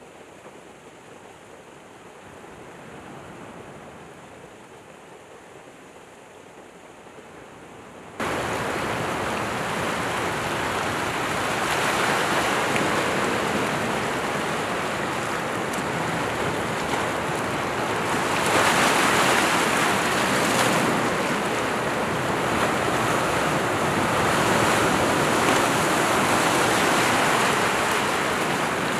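Sea surf washing ashore: soft at first, then, after a sudden jump in level about eight seconds in, louder waves breaking against rocks, swelling and falling away with each wave.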